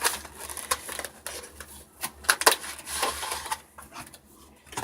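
Cardboard and plastic packaging of a Pokémon trading card box being handled, a string of light clicks, taps and rustles as the opened box is pulled apart.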